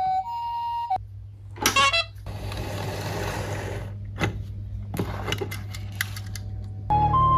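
A toy emergency vehicle's electronic two-tone siren, which cuts off about a second in, followed by handling noises: a rustle and several sharp clicks. Near the end another toy's two-tone siren switches on, alternating high and low over a low hum.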